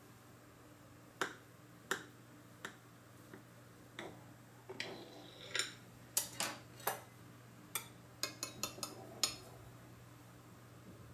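Metal cutlery clicking and tapping against a ceramic plate as a sponge cake is cut with a knife and a cake server is slid under the slice: single sharp clicks about a second apart at first, coming quicker in a cluster near the end.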